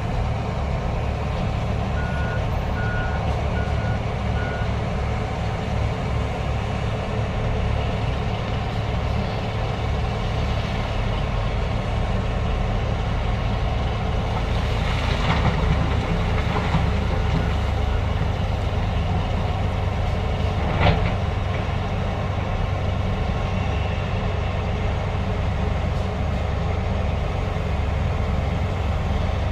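Heavy diesel machinery running steadily, with a reversing alarm beeping four times about two seconds in. A louder rattle comes about fifteen seconds in and a sharp clank about twenty seconds in.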